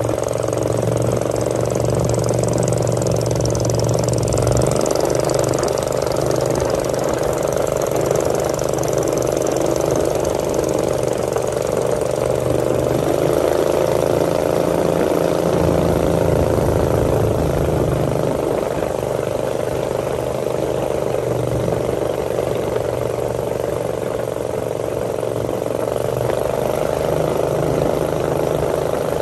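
Small motorboat's engine running steadily at speed, a constant drone, with water rushing past the hull.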